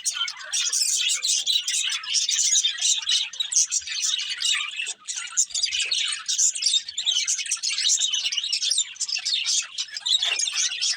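Pet budgerigars chirping: a dense, continuous stream of rapid, overlapping high chirps.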